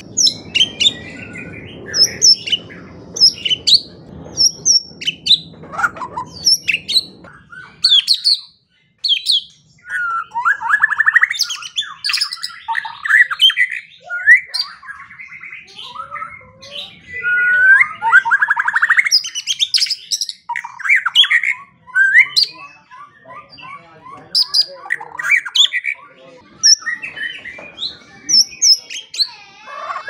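White-rumped shama singing a long, varied song of loud whistles, chirps and pitch glides, with a quick run of evenly repeated notes about three-quarters of the way through.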